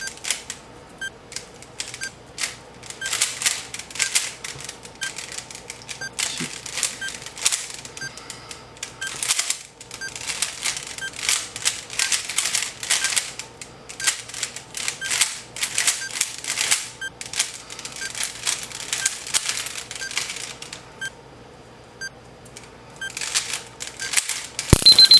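Plastic Rubik's cube being turned fast in a speed-solve: quick, irregular runs of clicking layer turns, with a faint tick about once a second. A sharp loud crack comes right at the end.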